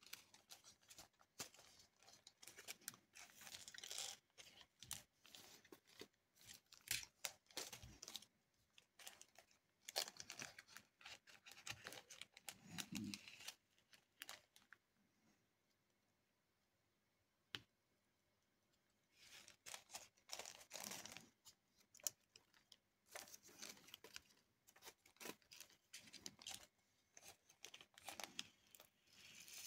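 Quiet crinkling and rustling of a small plastic bag of diamond-painting drills being handled, mixed with light clicks of the resin drills and plastic tools; there is a pause of a few seconds about halfway through.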